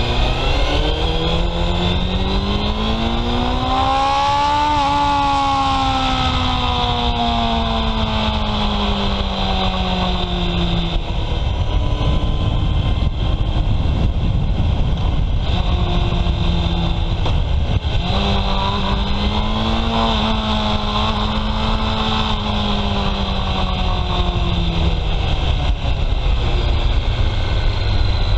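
Honda CB750 Sevenfifty's air-cooled inline-four engine through its stock exhaust while riding: the revs climb for about five seconds and then fall away slowly, settle lower for a while, and climb and fall away once more in the second half. A steady low rushing noise runs underneath.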